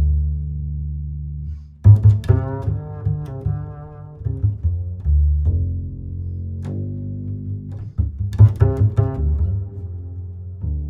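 Background music with a deep string bass line: held low notes that change pitch in steps, and sharper plucked notes about two seconds in and again near eight seconds.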